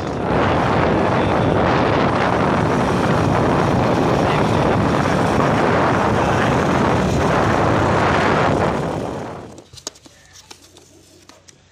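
Loud, steady rush of wind on the microphone and running noise from a moving vehicle, cutting off suddenly about nine and a half seconds in; after that only a few faint taps.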